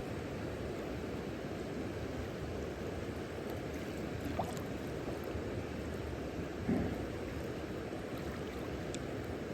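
Steady outdoor rushing background noise, strongest in the low range, with two small knocks, one about halfway through and a slightly louder one a little after.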